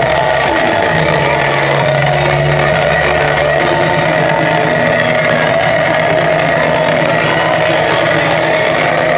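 Loud electronic dance music played over a club sound system: a sustained synth section of held, droning tones with no clear beat.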